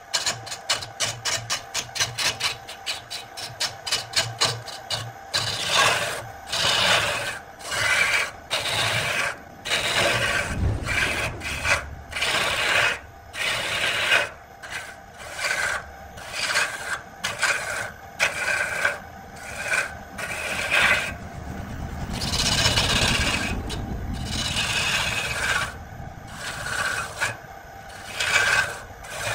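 A hand-held turning chisel cutting a spinning wooden spindle on a wood lathe. For the first five seconds it is a rapid run of short scraping strokes, then it settles into longer, uneven cutting passes.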